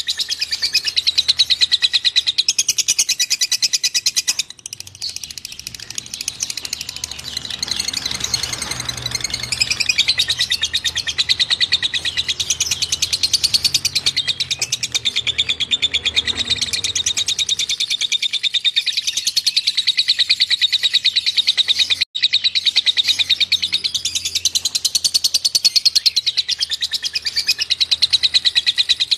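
A cililin songbird singing a rapid, dense, high-pitched chattering trill of fast repeated notes, the kind of song played to train other cage birds. The song drops briefly in loudness about four and a half seconds in and cuts out for an instant near the 22-second mark before carrying on.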